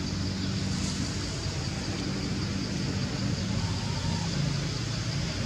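Steady outdoor background: a low droning hum under a constant high hiss, with no distinct events.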